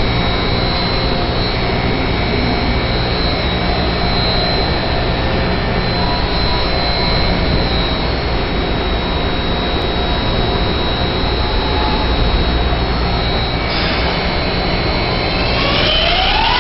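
MARTA rapid-transit train running, a loud steady rumble with thin high-pitched whining tones on top. Near the end a whine rises in pitch as the train picks up speed.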